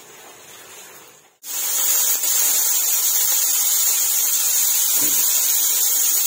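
Sliced onions sizzling in hot oil in a kadai: a steady, loud hiss that starts abruptly about a second and a half in.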